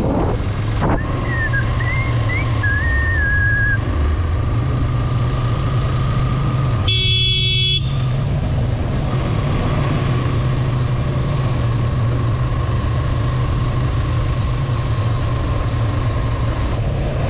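Motorcycle engine running steadily under riding load, with wind and road noise, at moderate road speed. A wavering high tone sounds for a few seconds near the start, and about seven seconds in a horn blows once, for under a second.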